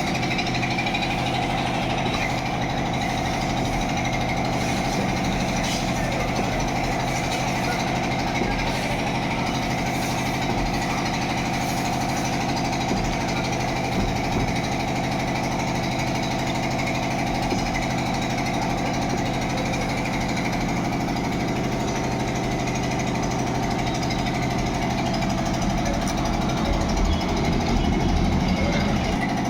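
A motor-driven machine running steadily, with a rattling, buzzing quality. It grows a little louder near the end.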